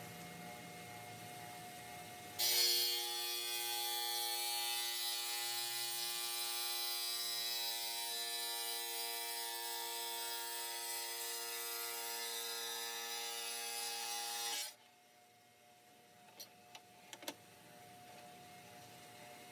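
Kobalt wet tile saw switching on and running with a steady whine while a tile is fed through the blade on its sliding tray. It cuts off suddenly about twelve seconds later, followed by a few light clicks.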